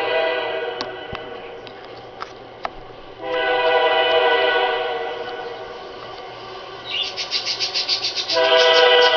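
CSX freight locomotive's multi-chime air horn blowing long blasts for a grade crossing. One blast fades out about a second in and another starts about three seconds in. Near the end a brief rapid fluttering leads into a loud blast.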